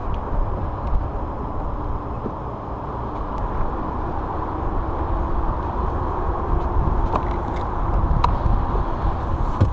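Wind buffeting the microphone: a steady low rumble. A few faint clicks come near the end.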